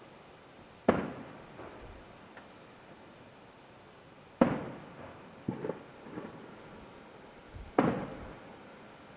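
Fireworks shells bursting about a mile away: three loud bangs a few seconds apart, each followed by a rolling echo, with a couple of smaller pops between the second and third.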